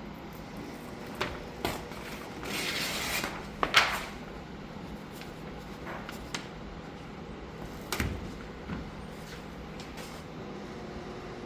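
Handling noises: a rustling scrape lasting about a second, starting about two and a half seconds in, then a sharp knock, with a few scattered clicks and taps later on.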